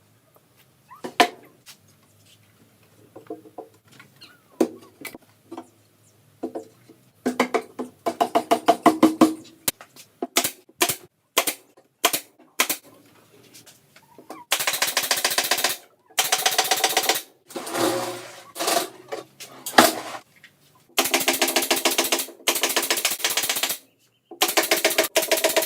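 Power driver driving screws into the cabinet panels: bursts of rapid, even hammering that run for a second or two at a time with short pauses between. The runs get longer and louder over the last ten seconds.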